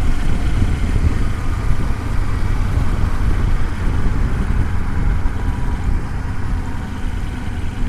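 Kawasaki Versys-X 300 parallel-twin engine running steadily under traffic noise, heard through a helmet-mounted microphone.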